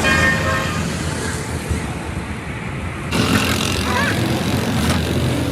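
Steady road-vehicle and traffic noise, with a brief pitched tone at the start and an abrupt change in the sound about three seconds in.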